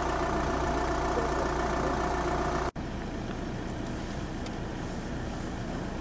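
A steady mechanical hum that cuts off abruptly a little under three seconds in, followed by a quieter steady hum.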